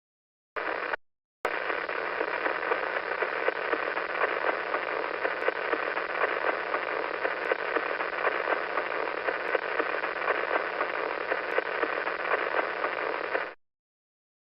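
Sonified radio signal of the pulsar PSR B0950+08: a static-like hiss full of fine crackle. A short blip comes first, then the hiss runs steadily and cuts off suddenly near the end.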